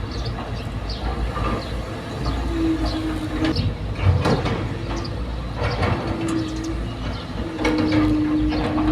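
Excavator at work: a steady low diesel rumble, with repeated metal clanks and a short whine that comes and goes several times.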